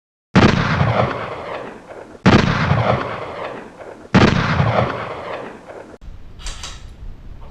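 Three heavy booms, each struck suddenly and dying away slowly, about two seconds apart, like explosion hits used as sound effects. After about six seconds they give way to quieter outdoor background noise.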